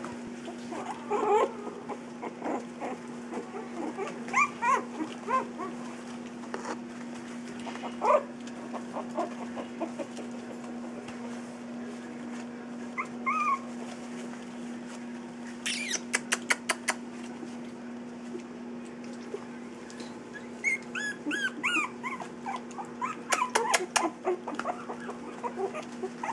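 Three-week-old puppies whimpering and yipping in short, scattered squeaks as they play, over a steady low hum. Two quick runs of sharp clicks come partway through and again near the end.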